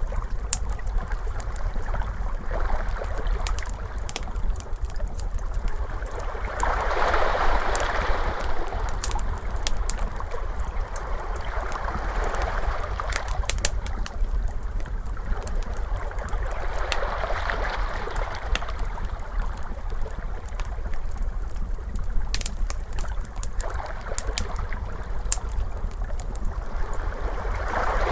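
Ocean waves washing in, swelling about every five seconds, mixed with the scattered pops and snaps of a crackling fire over a steady low rumble.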